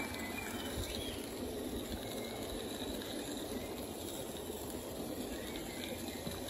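Small live-steam garden-railway locomotive running with a train of freight wagons: the steady running noise of the engine and the wagon wheels on the rails.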